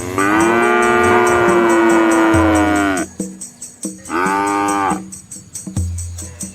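Red village cow mooing: one long, steady call of about three seconds that drops off at its end, then a shorter moo about four seconds in.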